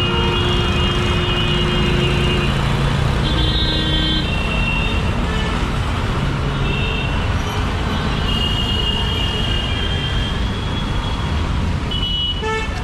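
Heavy road traffic, engines running, with vehicle horns honking again and again, often several at once.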